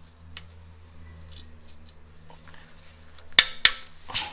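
Ratchet and socket working on an oil pan bolt: faint ticks, then two sharp metallic clicks close together about three and a half seconds in and another just before the end, over a steady low hum.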